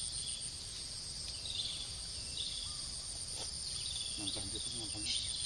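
Outdoor ambience dominated by a steady, high, pulsing insect trill, with short higher chirps now and then and a low rumble underneath. Faint distant voices come in near the end.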